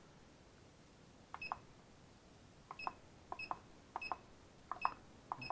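Turnigy Reaktor 300W 20A hobby battery charger's buttons being pressed, each press giving a click and a short high beep, about six times at an uneven pace, as its program menu is scrolled to the lithium battery charge setting.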